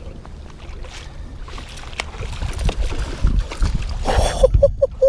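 Wind rumbling on the microphone over a plastic fishing kayak, with scattered light knocks against the hull. About four seconds in, a landing net splashes into the water to scoop up a fish, followed by a few short pitched cries.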